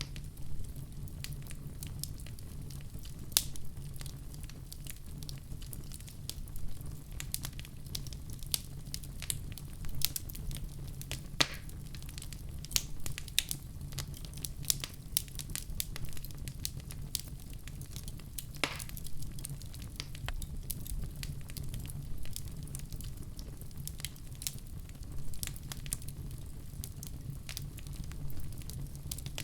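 Wood fire burning in a fireplace: a steady low rumble of flames with frequent sharp crackles and occasional louder pops.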